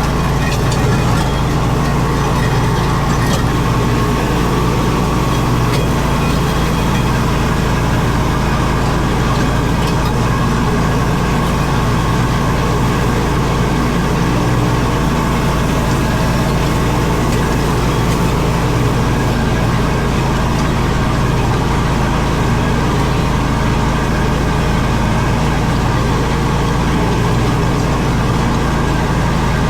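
Zero-turn mower's engine running steadily under load while mowing and clearing, with no change in speed.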